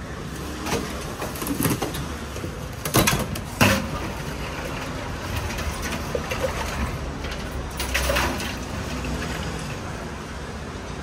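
A plastic ladle scooping black tea from a stainless-steel vat and pouring it into a cup, with a few sharp knocks about three seconds in and another short clatter about eight seconds in, over a steady low background hum.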